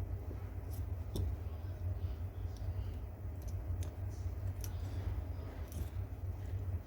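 Light clicks of pistol parts being fitted back together as the lengthened firing pin is reinstalled, about seven scattered clicks over a steady low hum.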